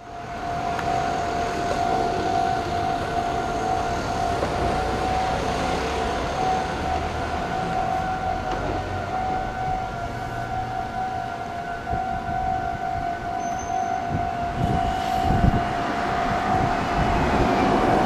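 Japanese railway level-crossing warning signal sounding with a steady ringing tone. A train rumbles through about two-thirds of the way in.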